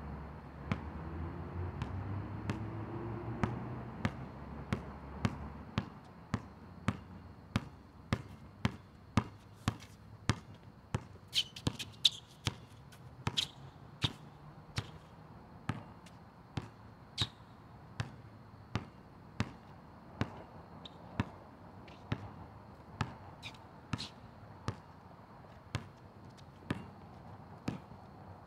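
A basketball being dribbled on an outdoor asphalt court: steady, even bounces, about three every two seconds.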